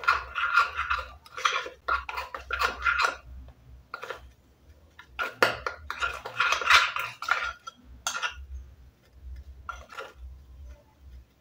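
Metal spoon clinking and scraping against a small glass bowl in short spells with brief pauses, stirring baking soda and water into a paste.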